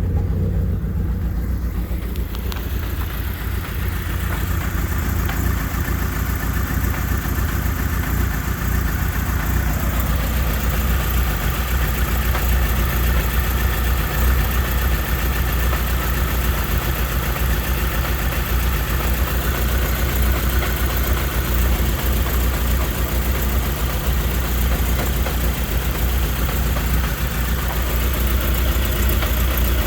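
1997 Eagle Talon's non-turbo 420A 2.0-litre four-cylinder engine idling steadily with a misfire.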